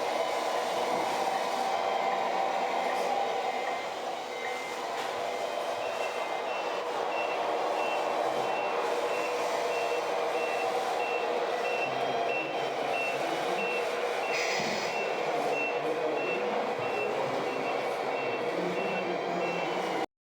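Reversing beeper on a 1/14 scale RC truck, a steady series of short, evenly spaced beeps starting about six seconds in, over a steady mechanical hum, with a brief hiss about fourteen seconds in.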